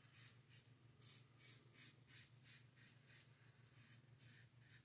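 Faint scraping of a Supply Copper Injector single-edge razor cutting beard stubble through shaving cream, in short quick strokes about three to four a second.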